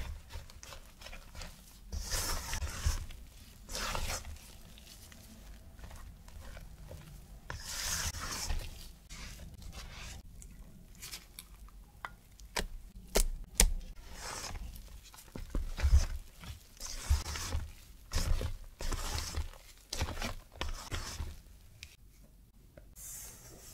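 Silicone spatula scraping and folding thick chocolate muffin batter in a stainless steel mixing bowl, in repeated separate strokes with a few sharp clicks. Near the end, a short hiss as a mesh sieve is shaken over the bowl.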